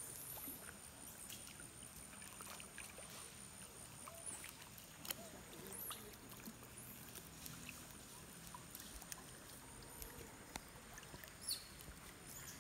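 Faint outdoor ambience: a steady high-pitched whine with scattered small ticks and rustles, two of them a little louder, about five seconds in and near the end.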